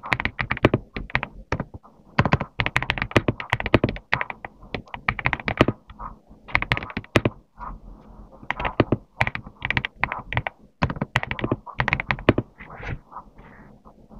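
Typing on a GMK67 mechanical keyboard: quick runs of keystroke clacks with short pauses between runs, the strokes softer near the end.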